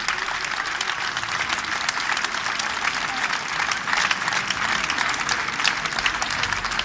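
Large audience applauding: many hands clapping in a dense, steady mass.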